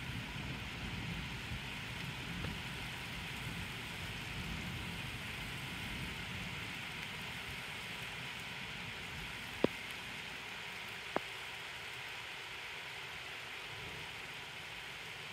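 Steady rain hiss, with a low rumble that dies away over the first half. Two sharp ticks come about a second and a half apart, a little past the middle.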